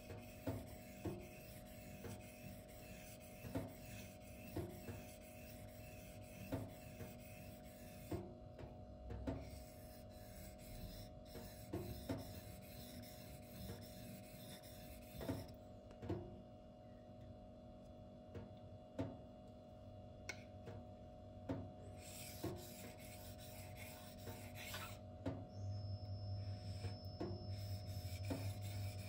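An M390 steel knife blade rasping across a Shapton 2K whetstone in short, even sharpening strokes, a little over one a second, while working the tip section. A low hum comes in near the end.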